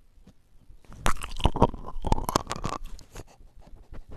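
A French bulldog smacking, licking and chomping its mouth right against a small microphone held to its lips. The close, crackly mouth noises start about a second in and go on in quick irregular bursts.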